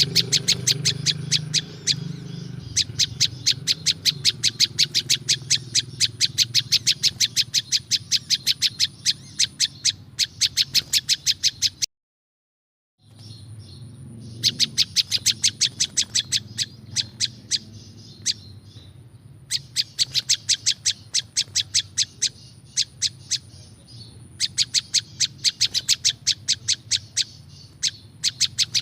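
Prinjak lumut songbird calling: a fast run of sharp, high, identical chip notes at about five a second, in runs of several seconds with short breaks. It is a recorded song used as a lure for wild birds. The sound cuts out completely for about a second near the middle.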